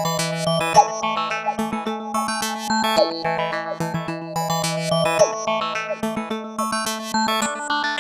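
Korg wavestate synthesizer playing its "Dissolving Faces" patch, raw with no added effects: held low pad notes under a fast, busy stream of short plucked, glitchy notes. The chord changes near the end.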